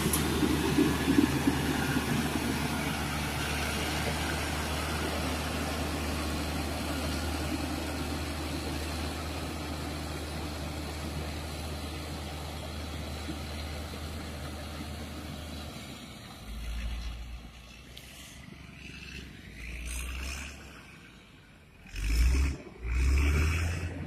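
Caterpillar motor grader's diesel engine running steadily close by, then fading out after about sixteen seconds. Near the end, a few short gusts of wind buffet the microphone.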